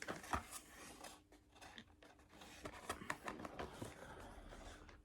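Faint handling sounds: scattered small clicks, taps and scrapes as objects are moved about.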